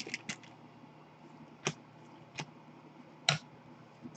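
Panini Select hockey cards being handled and shuffled by hand, just out of their foil pack: a few soft clicks at the start, then three more distinct card flicks spread out over the next few seconds.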